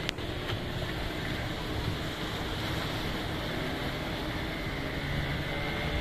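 Small outrigger fishing boat's engine running steadily as it heads out through choppy sea, under the wash of waves breaking on rocks and wind.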